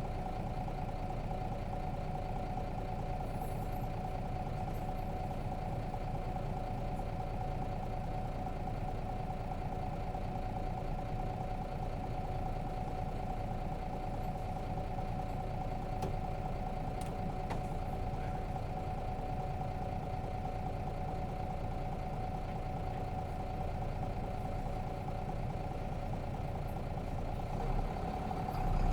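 Nissan Diesel FE6 straight-six diesel of a 2002 Nissan Diesel RM city bus idling steadily, heard inside the passenger cabin; near the end the engine grows louder.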